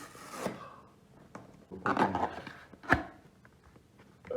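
Handling noises: rustling and scraping, with a few knocks, the sharpest one just before the three-second mark.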